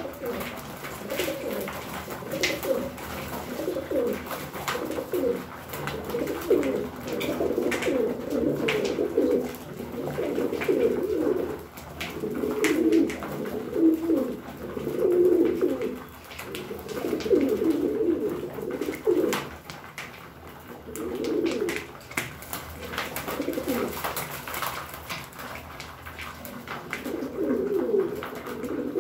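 Domestic pigeons cooing in repeated bouts of a second or two, several birds overlapping, with scattered sharp clicks of beaks pecking seed from a feeding tray.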